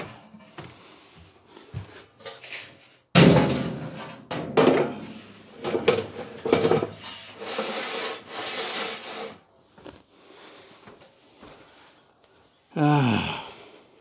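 A replacement drum (bowl) for a Simpson clothes dryer being lowered into the empty cabinet and fitted. A sudden loud clunk comes about three seconds in, then several seconds of knocking and scraping. Near the end there is a short sound that falls in pitch.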